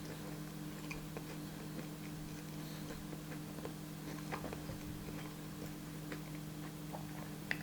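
Close-miked chewing of a grilled peanut butter, jelly and banana sandwich: scattered soft crunches and wet mouth clicks, with a sharper click near the end, over a steady low hum.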